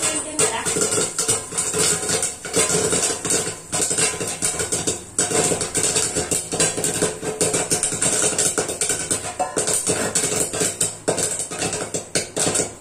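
Popcorn kernels popping inside a lidded aluminium pan on a gas stove, a dense, irregular rattle of many quick pops against the lid: the corn is in full popping.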